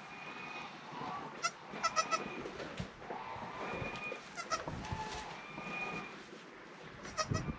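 Goats bleating, several short calls one after another.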